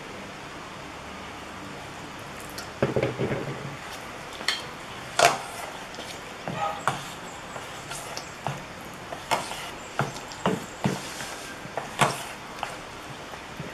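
Metal spoon stirring a thick, sticky flour-and-water batter in a stainless steel bowl: irregular scrapes and clinks of the spoon against the bowl, loudest about five seconds in and again near the end.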